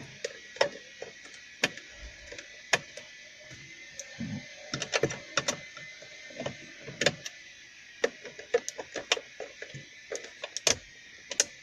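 Irregular light clicks and ticks of a screwdriver turning a T20 Torx screw out of plastic centre-console trim, over a faint steady hiss.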